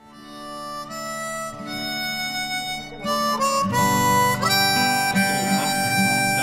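Background music fading in: a melody of long held notes, joined about halfway through by a fuller, louder accompaniment.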